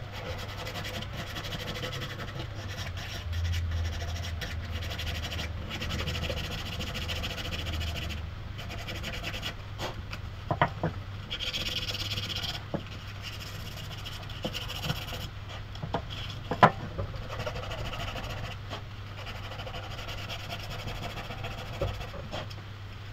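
Scratchy abrasive rubbing on the kukri's maple handle as it is ground and sanded down, with a low steady hum underneath and a few sharp knocks.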